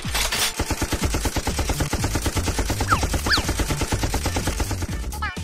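Machine-gun fire sound effect: a rapid, even string of shots, about ten a second, with a couple of brief falling whistles about three seconds in.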